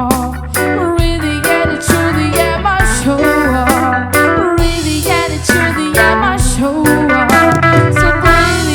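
Live reggae band playing an instrumental stretch, with an electric guitar melody over bass and drums in a steady beat.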